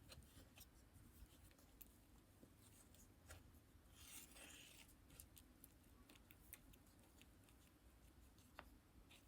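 Close-miked lipstick being worked for ASMR: faint sticky taps and small clicks, with one brief scraping smear about four seconds in.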